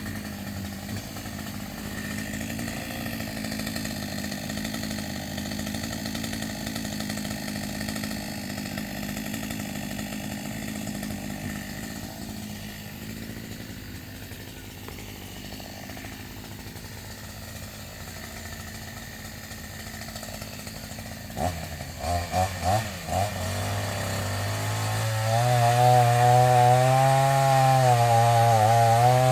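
Chainsaw engine running steadily at low speed, revved in four short blips about three-quarters of the way in, then run hard near the end with its pitch wavering up and down as it cuts into the wood.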